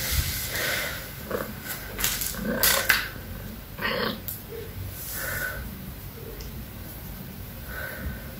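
Tuxedo cat meowing several times in short calls, mixed with a few clicks and rustles of the cat being handled in the first few seconds.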